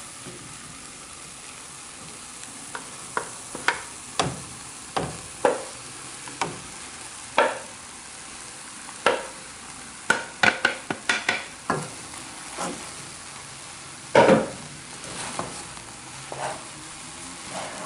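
A utensil stirring ground chicken into a thick flour-and-milk sauce in a pan, with irregular scrapes and knocks against the pan, the loudest about two-thirds of the way through. A faint steady hiss runs underneath.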